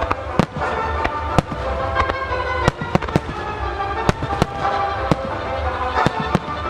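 Ruggieri aerial firework shells bursting in quick succession, about a dozen sharp bangs at irregular intervals, some coming in close pairs. Music plays steadily underneath.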